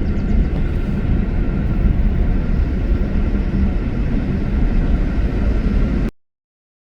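Steady low rumble that cuts off abruptly about six seconds in.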